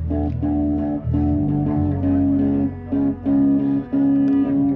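Guitar and bass guitar playing an instrumental passage of held notes, one after another, with a steady low bass underneath.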